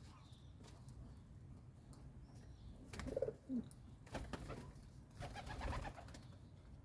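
Pigeon cooing: a short, low call that drops in pitch about three seconds in, followed by a couple of brief, noisier sounds.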